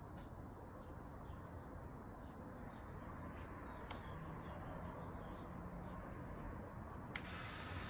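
Faint repeated high chirps over a low background hum. Near the end, a small toy RC boat's electric motor and propeller whir briefly as it drives across the water.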